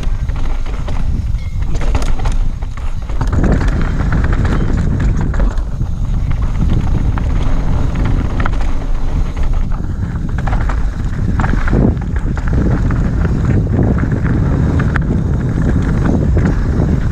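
Mountain bike descending a rough dirt singletrack at speed: tyres crunching over gravel, stones and roots, with a steady rattle of chain and frame knocking on every bump, under a continuous rumble of wind on the camera microphone.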